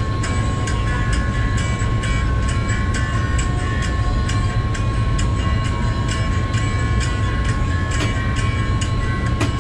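CSR SDA3 diesel-electric locomotive under way, heard from its cab: a steady low engine rumble with a steady high whine and frequent light clicks.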